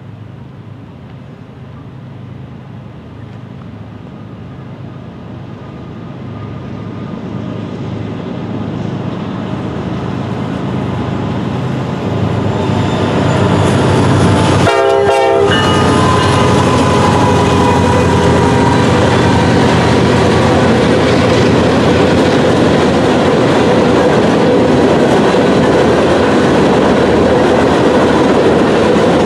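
Diesel freight train approaching and passing behind Norfolk Southern locomotives. The engine drone grows steadily louder for about twelve seconds, and a short horn blast sounds about halfway as the locomotives go by. After that, open hopper cars roll past with a steady rumble and wheel clatter, with some wheel squeal.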